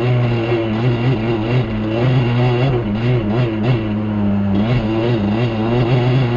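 Off-road ATV engine running under way at a fairly steady speed, its pitch rising and falling slightly.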